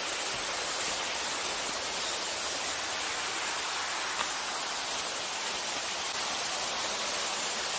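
Steady rushing of a jungle waterfall, an even wash of falling water, with a constant high-pitched insect drone above it.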